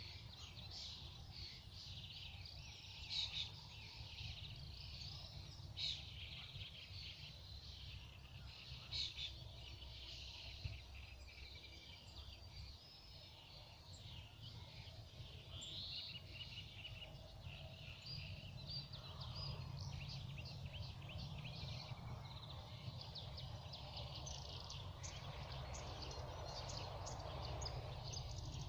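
Several songbirds chirping and trilling, with a few louder calls in the first half, over a steady low rumble; a soft hiss builds up in the last third.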